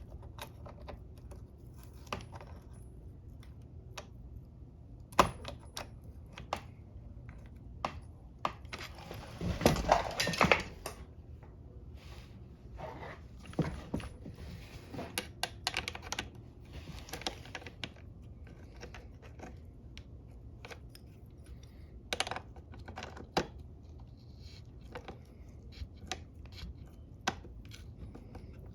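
Small metal hand tools clicking and tapping on metal parts, with a longer rustling scrape about ten seconds in, while bolts on a hedge trimmer's throttle cable are worked with a wrench and pliers.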